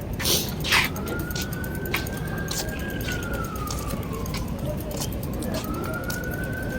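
Emergency vehicle siren in a slow wail: the tone rises, holds, falls, then rises again about five and a half seconds in, over a steady low rumble. Two sharp clicks come within the first second.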